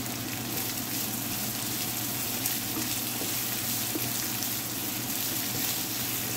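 Sliced onions, green chillies, garlic and ginger sizzling in a frying pan as they sauté, stirred now and then with a wooden spatula: a steady frying hiss.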